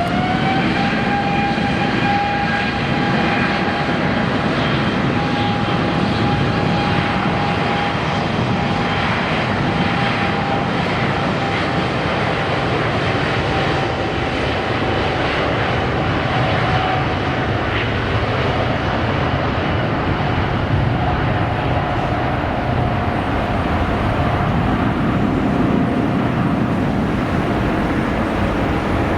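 Airliner engines running at high power, with a loud rumble under a whine. The whine climbs to a steady pitch right at the start, holds there, and sags a little about two-thirds of the way through.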